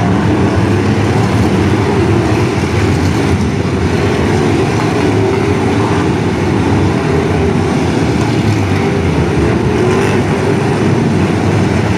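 A field of figure-eight race cars running together on the track, a loud steady drone of many engines with their revs wavering up and down.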